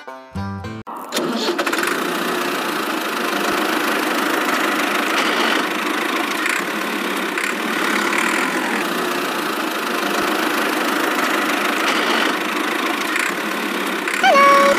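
Miniature DIY tractor's small motor running steadily: a dense, even whir that starts about a second in. A short squealing tone steps down in pitch near the end.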